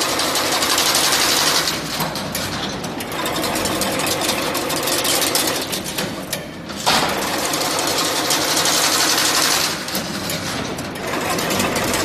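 Servo-motor-driven workshop machine running with fast, dense clattering. A louder, hissing phase runs through the first two seconds and comes back from about seven to ten seconds in, a working cycle that repeats.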